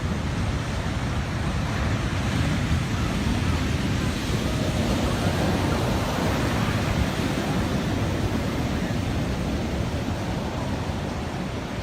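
Rough sea waves surging and crashing against a shore wall, a steady heavy wash of water with strong wind rumbling on the microphone.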